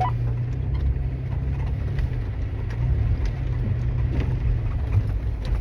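Toyota FJ Cruiser's V6 engine and drivetrain running steadily as it drives along a trail, a low drone with scattered faint ticks and knocks.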